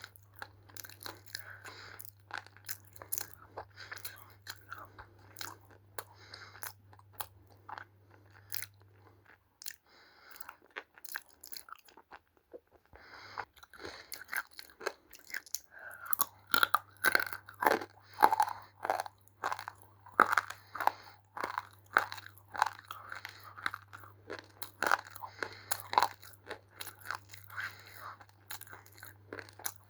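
Roasted multani mitti (fuller's earth clay) being bitten and chewed in a run of irregular crisp crunches, louder and denser in the second half. A faint low hum sits under most of it.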